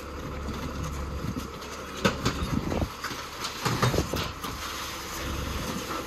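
Rear-loading garbage truck's engine running with a steady low hum, with two spells of clattering and knocks about two and four seconds in as rubbish is loaded into it.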